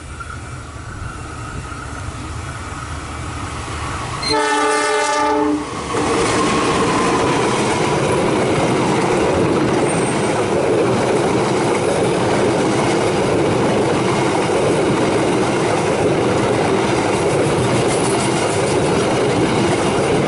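A train approaching, sounding its horn once for about a second and a half, then passing close by with a loud steady rumble and clatter of wheels on the rails.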